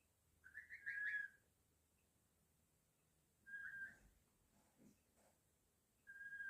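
Sleeping goslings making soft whistling 'snores'. A flutter of short peeps runs into a held whistle about a second in, and two more single held whistles follow, one near the middle and one at the end.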